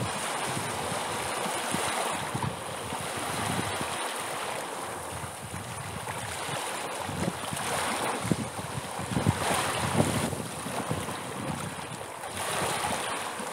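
Sea waves washing in, swelling louder and easing off in slow surges.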